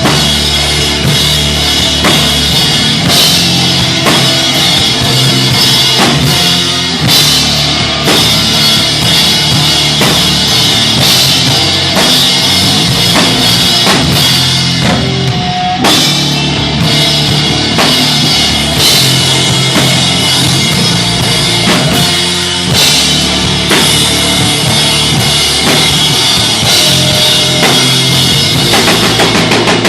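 Live stoner rock band playing an instrumental passage: heavy drum kit with bass drum and cymbals driving a steady beat under distorted guitar and bass.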